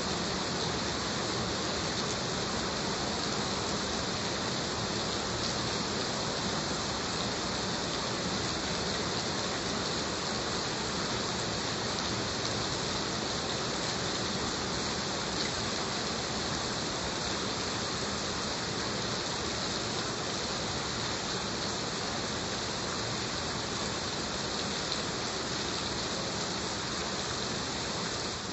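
Heavy rain falling steadily, an even hiss of many drops with no single sound standing out.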